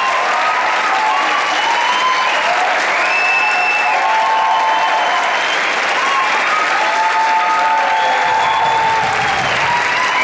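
Large audience applauding steadily, with many high-pitched cheers and shrieks over the clapping.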